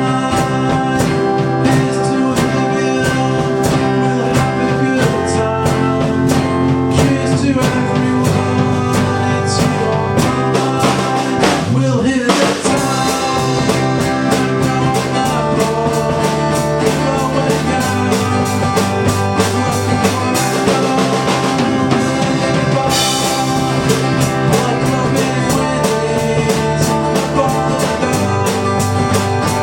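A rock trio playing live: guitar, bass guitar and drum kit, with the drums keeping a steady beat throughout.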